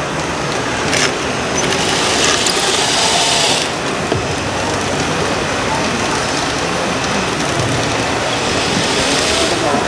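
Electric drive motors and gearing of an RC Liebherr 634 crawler loader model whirring and rattling as it tracks and works its bucket at a sand pile. There is a brighter, higher whir from about one second in to three and a half seconds, and again near the end.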